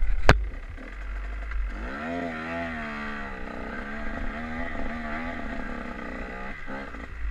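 KTM enduro dirt bike's engine revving up and down under load as it climbs a steep, leaf-covered slope. A sharp knock and wind rumble on the microphone come just before.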